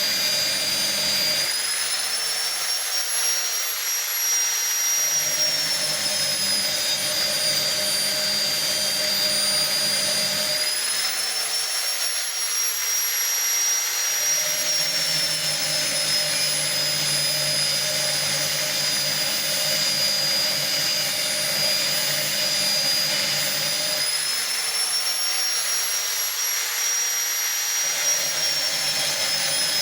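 Electric grinder sharpening a circular saw blade, running with a steady high whine. Three times the whine rises for a few seconds as the lower grinding rasp stops, then sinks back as the rasp returns: the motor speeding up off the work and slowing as the wheel bites into the teeth.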